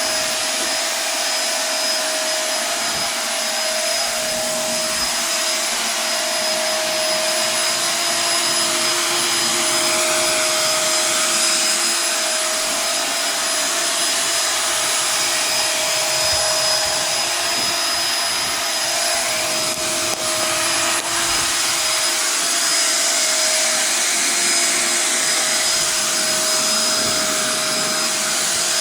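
Shark vacuum cleaner running steadily on carpet, a continuous rushing motor noise with a fixed whine.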